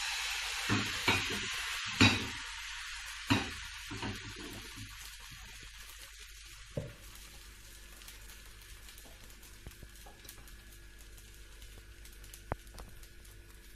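Thin crepe batter sizzling as it is ladled into a hot, oiled cast-iron skillet over high heat. There are a few sharp knocks of pan and ladle in the first four seconds. The sizzle then settles to a quieter, steady hiss as the pancake cooks.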